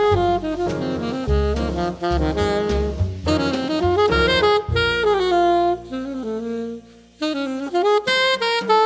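Small jazz group playing: an alto saxophone carries a flowing melody over grand piano and double bass. The music thins out briefly about seven seconds in before the saxophone comes back in.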